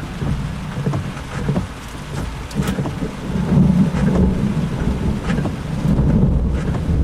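Rain falling with scattered drops ticking close by, and the low rumble of thunder swelling about halfway through and again near the end.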